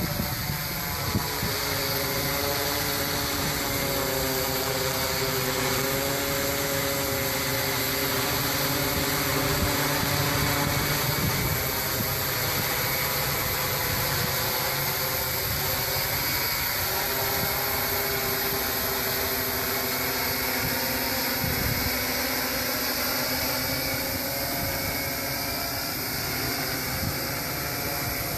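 Six-rotor electric hexacopter's motors and propellers humming steadily as it flies itself back to launch under a geofence failsafe, with the pitch of the whine wavering as the motors adjust.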